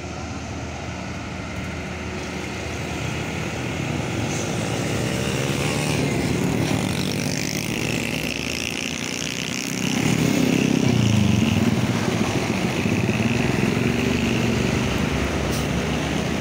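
Roadside traffic: fully loaded heavy diesel trucks climbing slowly uphill, engines working hard under load, with motorcycles passing. The engine sound grows louder about ten seconds in as a truck draws close.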